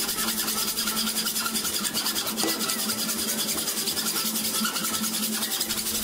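Hacksaw blade cutting through the secondary winding of a microwave oven transformer with steady back-and-forth strokes, a continuous metallic rasp.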